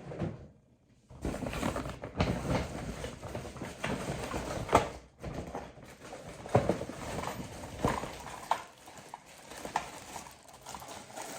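Packaged products being handled and unpacked: plastic packaging rustling, with irregular knocks and clicks of items set down and taken out.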